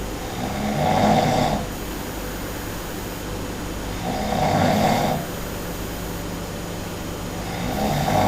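A person snoring loudly in sleep: three rasping snores, each about a second long and coming roughly every three and a half seconds, over a steady low hum.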